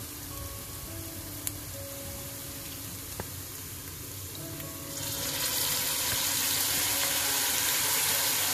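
Chopped onions and garlic frying gently in hot oil in a stainless steel pot; about five seconds in, canned tuna is tipped in and the sizzling jumps to a loud, steady hiss.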